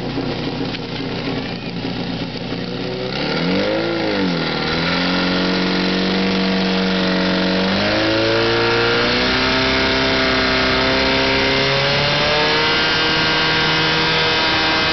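Portable fire pump's engine starting about three seconds in, revving up and dropping back briefly, then running steadily. It steps up to higher revs about eight seconds in and holds there while pumping water through the attack hoses.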